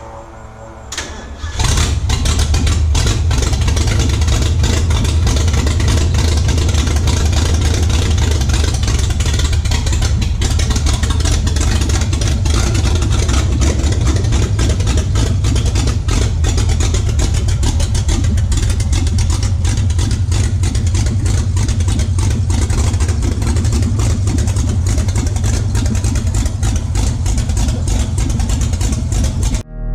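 LS V8 engine of a Ford Falcon gasser running loud and steady, with a deep low rumble, coming in abruptly about a second and a half in.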